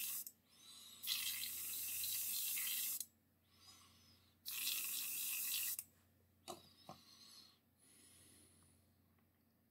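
Airbrush spraying paint in two bursts of hiss, the first about two seconds long starting a second in, the second just over a second long. Two light clicks follow a little later.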